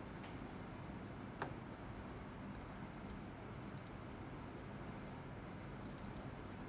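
Clicks from a laptop being worked: one sharp click about a second and a half in, then lighter clicks, some in quick pairs and a cluster of four near the end. A low steady room hum runs under them.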